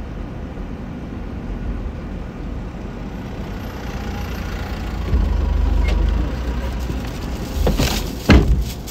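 Steady low vehicle rumble heard from inside a car, swelling for about a second midway. Near the end come a few sharp knocks, then one loud thump.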